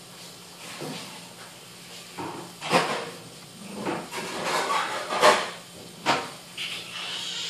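A baby sulcata tortoise crawling across newspaper, its claws and shell scraping and rustling the paper in several loud bursts.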